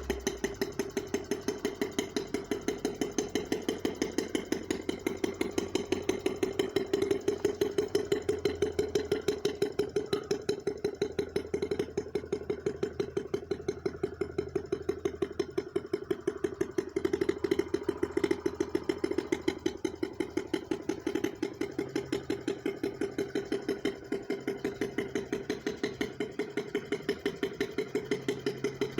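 Small petrol engine of a radio-controlled model boat running steadily with a rapid, even firing beat.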